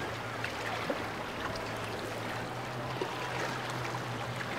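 Water rushing and splashing with a steady low hum from a boat's motor underneath.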